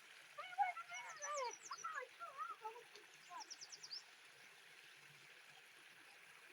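Songbirds calling over the steady rush of a stream: about three seconds of warbled, quickly bending notes, then a short, fast trill of high descending notes.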